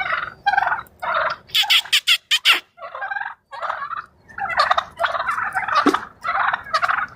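A flock of wild turkey toms gobbling over and over, the calls following and overlapping one another with barely a pause. A quick run of sharp clicks comes about two seconds in.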